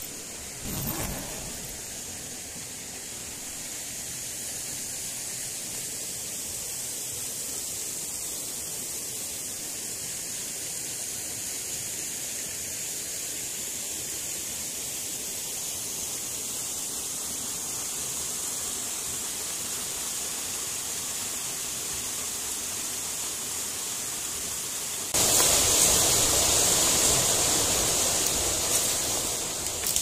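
Steady rush of a waterfall and its stream, becoming suddenly louder about 25 seconds in.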